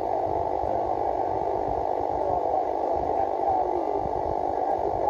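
HF amateur radio receiver on the 40-metre band at 7.128 MHz putting out steady static and hiss through its speaker, the narrow muffled rush of an open channel with no one transmitting clearly. Faint warbling tones drift through the noise about halfway through.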